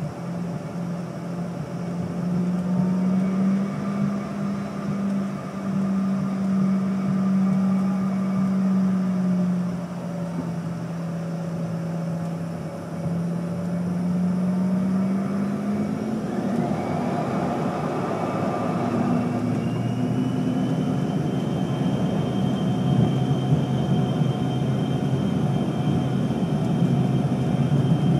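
An airliner's engines heard from inside the cabin, running with a steady hum while taxiing. About halfway through they spool up to takeoff power: the hum and a high whine rise in pitch and the noise builds into a louder, steady rush for the takeoff roll.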